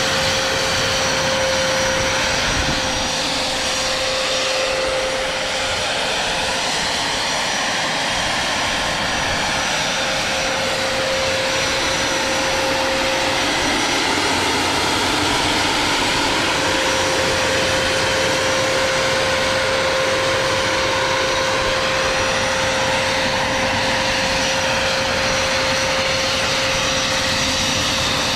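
Small gas turbine engine of a Vario MD600N scale model helicopter running steadily: a constant whine over a rushing hiss, with a steady mid-pitched tone that fades away for a few seconds about halfway through and then returns.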